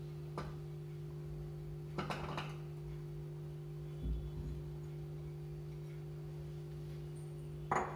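Chopped vegetables scraped from a glass bowl into a pot: a few short, soft taps and scrapes about two seconds apart, over a steady low hum.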